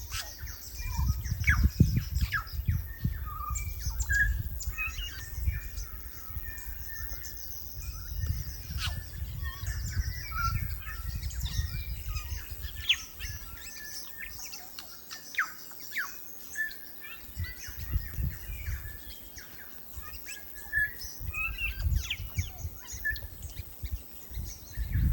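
New Zealand bellbird (korimako) singing: short clear notes and quick sweeping whistles in loose, irregular phrases.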